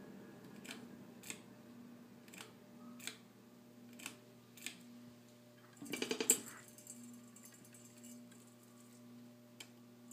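Litex Vortex ceiling fan running with a steady motor hum and sharp ticks every second or so; the uploader says this fan hums a lot and has noisy bearings. About six seconds in, a hand gripping the switch housing sets off a short burst of clicking and rattling.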